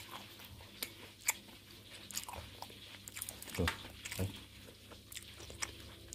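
Close-up chewing and biting into crisp batter-fried lumek fish: irregular sharp crunches and crackles, a second or so apart.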